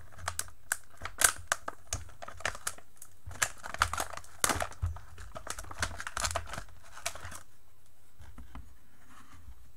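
Clear plastic packaging crinkling and tearing as a multimeter is unwrapped: a run of sharp crackles that stops about seven and a half seconds in.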